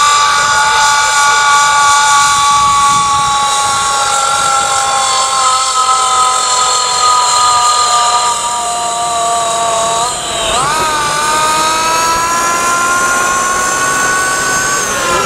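Valmet 1203 tractor's Comprex pressure-wave supercharger whining over its six-cylinder diesel as it pulls a loaded trailer uphill. The high, many-toned whine slowly falls in pitch, dips sharply and climbs back about ten seconds in, then rises gently and drops away near the end.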